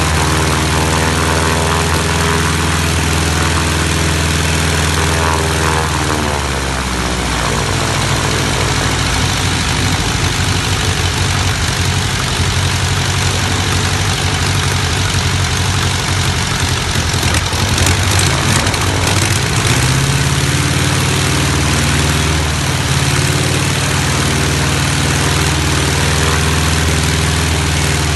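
AeroBR 1.6 aircraft engine with an aerodynamic compressor, running steadily at low speed, then opened up about six seconds in to a higher, rougher speed, and eased back to a steady lower speed about twenty seconds in.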